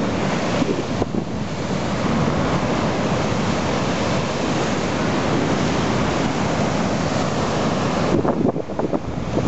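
Heavy storm waves breaking and surging against a harbour sea wall in a rough sea, a sustained rushing wash, with strong wind buffeting the microphone. A little past eight seconds the wash eases and the wind gusts stand out.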